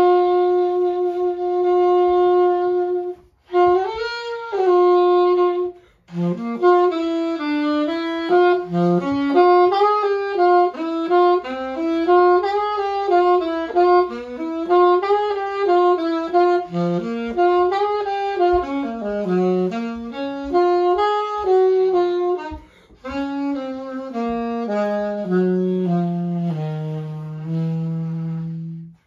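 Solo saxophone playing an unaccompanied melody: a long held note, two short pauses, then a flowing line that winds down to a low held note near the end.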